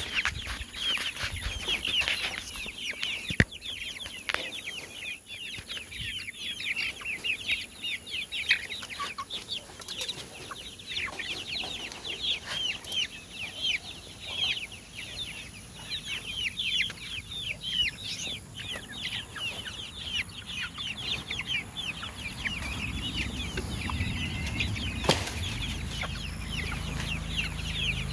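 A flock of young chickens peeping and cheeping without pause, many short high calls overlapping. A low rumble comes in near the end.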